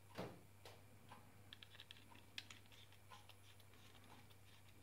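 Faint small clicks and ticks of a screwdriver turning screws back into a Logitech M705 wireless mouse's plastic case, with a soft knock just after the start and a quick cluster of ticks about two seconds in.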